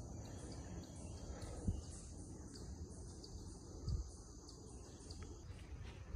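Woodland insects chirping: a high chirp repeating about twice a second over a steady high insect hum that fades near the end. A low rustle runs beneath, with two soft low thumps.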